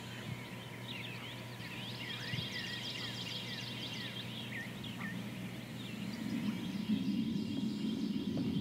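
Birds chirping in a dawn chorus, many short rising and falling calls overlapping, thinning out after about five seconds, over a low steady hum. A low rumbling noise builds near the end.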